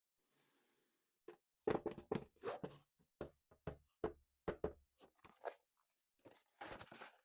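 A string of short crunches, clicks and knocks from handling a plastic toy and its packaging, about a dozen separate sounds, with a longer crinkling rustle near the end.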